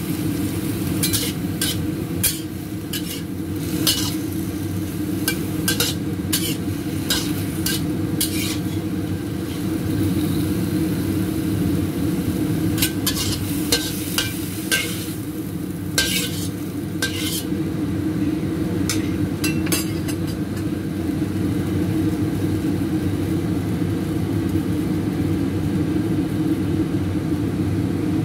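Metal spatula scraping and clanking against a stainless steel wok as stir-fried lettuce is stirred and scooped out onto a plate, over a steady low rumble; the scraping stops about two-thirds of the way through, leaving only the rumble.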